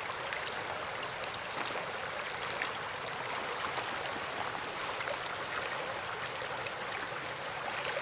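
Shallow creek water flowing steadily over stones, an even rushing ripple.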